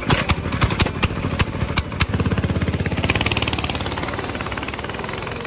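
Predator 224 single-cylinder four-stroke go-kart engine, firing in uneven beats at first, then running in rapid even beats and revving up about two seconds in as the kart pulls away. The sound fades slowly as the kart moves off.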